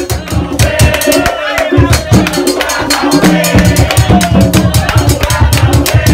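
Loud intro music with a fast drum and percussion beat; the bass beat fills in steadily from about halfway through.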